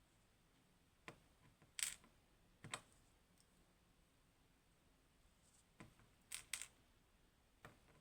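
Several sharp little clicks and taps, some in quick pairs, from small metal parts of a disassembled Go Grand V pin-tumbler lock (pins, drivers, springs) being handled and set down.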